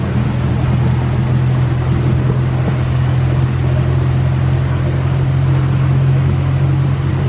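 Amusement-park miniature train running along its track: a steady low engine hum with the rumble of the moving coaches.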